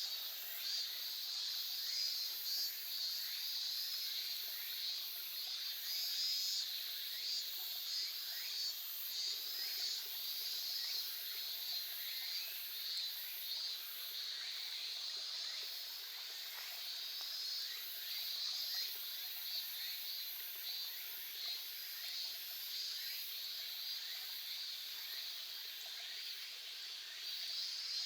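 Small stream babbling steadily, with a constant high insect chorus pulsing over it.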